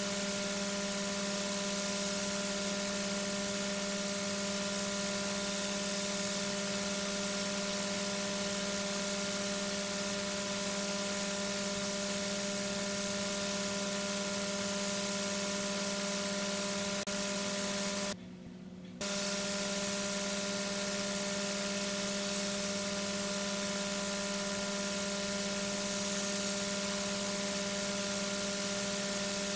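Steady electrical hum of several fixed tones over an even hiss, the background noise of a nest camera's audio feed. It cuts out for under a second about two-thirds of the way through.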